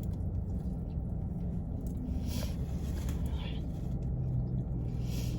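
Steady low rumble and hum of an idling car heard from inside the cabin, with a few soft, brief chewing noises.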